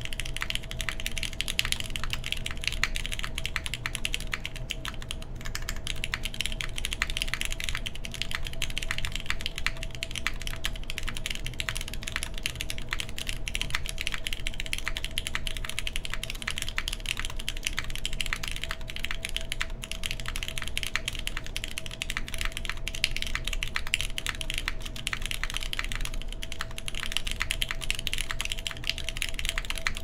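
Continuous typing on an OC-62 mechanical keyboard with lubed Cherry MX Black linear switches, a full aluminum plate and GMK ABS keycaps: a dense, unbroken stream of keystroke clacks at an even pace.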